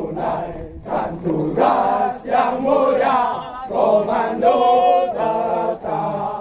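A large group of men singing a running cadence in unison while jogging in formation, in short phrases with brief breaks between them.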